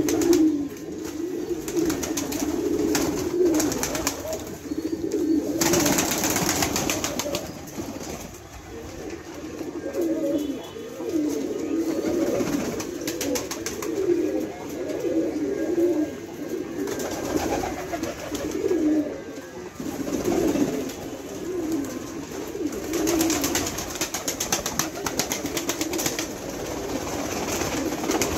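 Many fancy domestic pigeons cooing together, overlapping low warbling coos. Now and then a burst of rustling noise breaks in, about six seconds in and again near the end.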